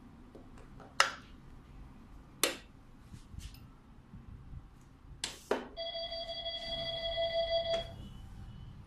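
Sharp metallic clicks and knocks as parts and tooling are handled on a SCHMIDT manual press. Then a steady electronic beep lasting about two seconds from the press's force-and-stroke monitoring unit, an alarm that marks the press cycle as an error.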